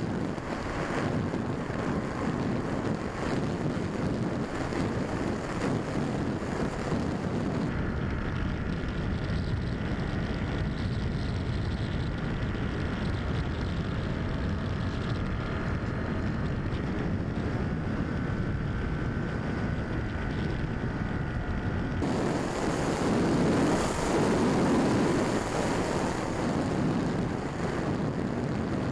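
Onboard sound of a Quanum Observer FPV plane in flight: wind rushing over the camera with the steady whine of its electric motor and propeller. The sound changes abruptly about eight seconds in, where the motor tones come through more clearly, and changes back about three-quarters of the way through.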